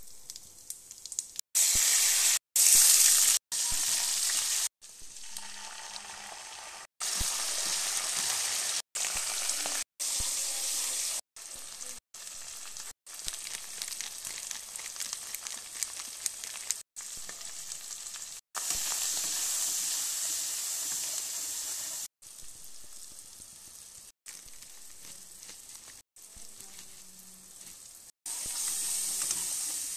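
Food frying in hot oil in a non-stick kadai: a steady high sizzle, with a slotted spatula stirring a tomato-onion masala near the end. The sizzle stops dead and restarts many times, loudest a couple of seconds in.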